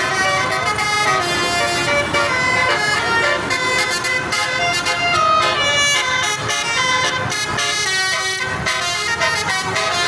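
Basuri telolet horn on a bus playing a tune: a continuous run of loud horn notes stepping up and down in pitch, several tones sounding at once.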